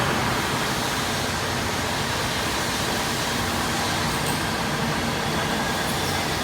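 Steady machinery noise of a single-spindle beam drilling machine running, an even hiss with a faint low hum underneath.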